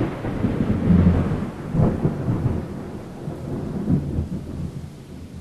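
Stock sound effect of thunder rumbling over steady rain. The rumble swells again about one, two and four seconds in, then slowly dies down.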